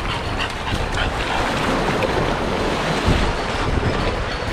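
Shallow surf washing up the shore and an English bulldog's paws splashing through it, with wind rumbling on the microphone.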